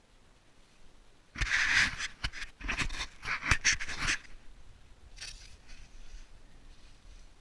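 A climber's heavy breathing close to the microphone: several hard, noisy breaths in quick succession, mixed with a few sharp knocks, then one fainter breath.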